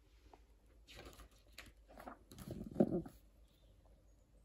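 Greyhound breathing and snuffling close to the microphone: a few soft, noisy huffs, the loudest about three seconds in.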